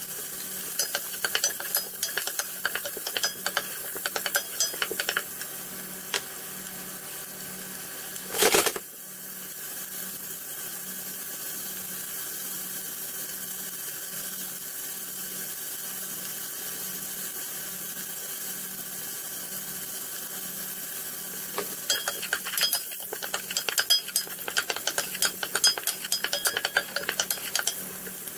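Diced onion and garlic sizzling in olive oil in a stainless steel stockpot, with a wooden spoon clicking and scraping against the pot in two spells of stirring, at the start and near the end. There is one sharp loud knock about eight seconds in.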